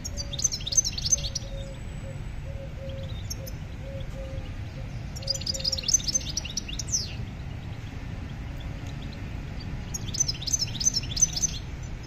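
Small songbird singing three short, rapid twittering phrases about five seconds apart, over a steady low rumble.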